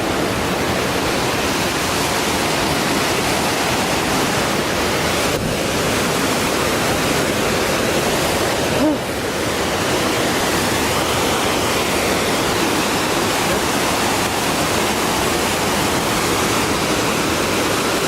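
Waterfall rushing, a loud, steady wash of falling water close to the microphone, with two brief dips about five and nine seconds in.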